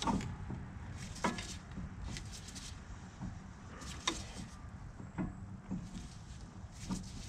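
A handful of light, scattered clicks and knocks of hand tools and metal brake parts being handled at the front brake caliper while its piston is pushed back, over a faint steady low hum.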